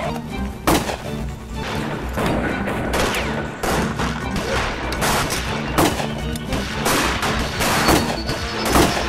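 A string of handgun shots, roughly one a second, over background music.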